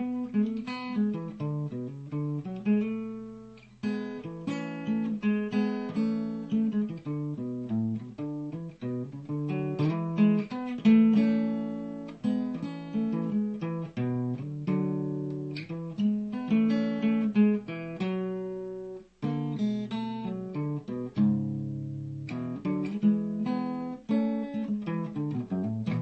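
Acoustic guitar played solo: a steady run of picked single notes and chords, each ringing and fading, with a short break about three-quarters of the way through.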